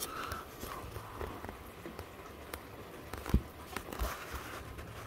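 Steady rain heard through a house window: an even hiss with scattered ticks and taps of drops, and two dull thumps about three and four seconds in.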